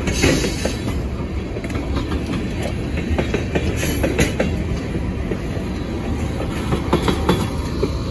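Railroad tank cars of a freight train rolling past close by: a steady rumble of steel wheels on the rails with many sharp clacks and knocks.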